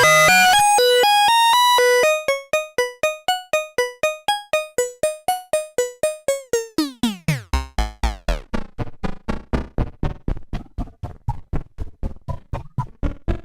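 Modbap Osiris wavetable oscillator in a Eurorack patch playing a synth sequence: held notes, then a quick run of short plucked notes, a falling pitch sweep about seven seconds in, then short percussive notes with a deep bass.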